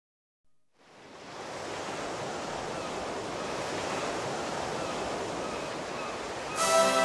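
Sea waves washing against shoreline rocks, fading in after a second of silence as an even rushing. Music begins near the end.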